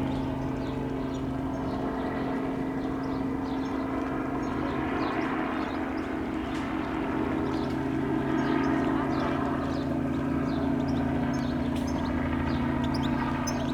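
Robinson R44 Raven helicopter's steady drone, a constant low hum with overtones that holds its pitch and swells slightly about eight seconds in.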